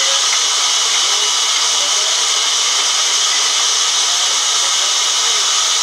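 Large sawmill band saw running with a loud, steady hiss, its blade ready to cut a log.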